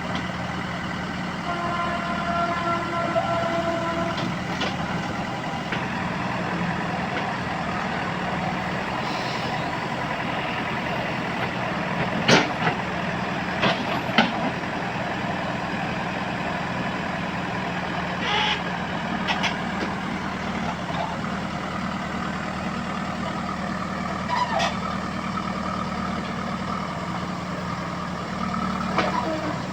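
Heavy diesel engine of a backhoe loader running steadily, with a few sharp knocks, two about twelve to fourteen seconds in and more later.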